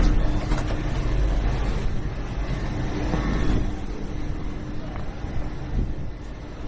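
Low rumble and steady hum of a GWR Class 800 Intercity Express Train, slowly getting quieter.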